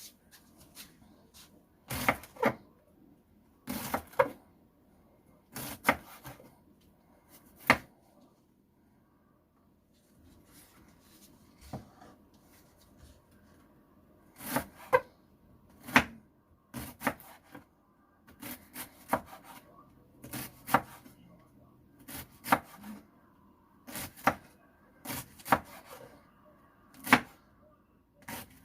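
Knife cutting red cabbage on a cutting board: sharp knocks of the blade striking the board, one about every two seconds at first, then, after a pause, quicker runs of several strokes.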